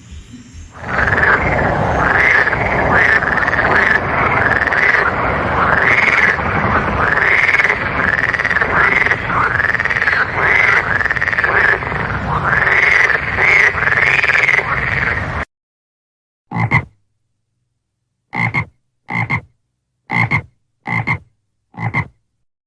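Frogs croaking in a dense overlapping chorus, each call rising and falling in pitch. The chorus cuts off suddenly about fifteen seconds in. After that come single short croaks, about seven of them, spaced roughly a second apart with silence between.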